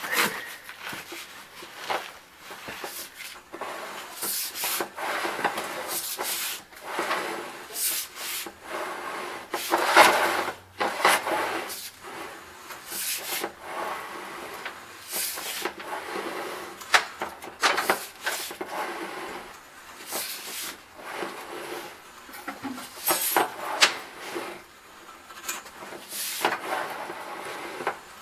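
Irregular rubbing and scraping, coming in short uneven strokes with a few sharper clicks, from a sewer inspection camera's push cable being fed by hand into a drain line.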